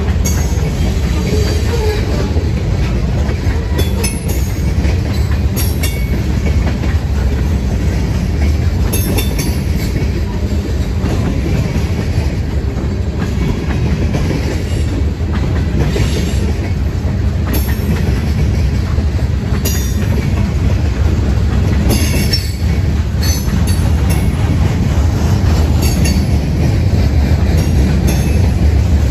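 Freight train of tank cars and gondolas rolling past: a steady heavy rumble of the cars, with the wheels clicking and clattering on the rails at irregular intervals.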